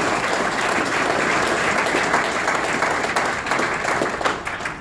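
A large audience at dinner tables applauding steadily, the clapping dying away near the end.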